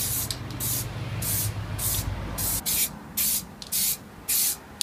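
Aerosol spray paint can hissing in short bursts, a little under two a second, as the spokes of an alloy wheel are sprayed.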